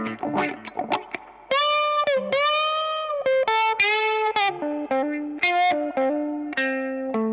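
Electric guitar played through a vintage 1967 Jen Cry Baby wah pedal: a line of single picked notes with a held note in the middle whose tone sweeps up and back down under the wah.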